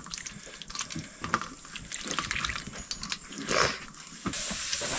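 Cooking sounds: water splashing and dripping with scattered small knocks, and a steady hiss setting in about four seconds in.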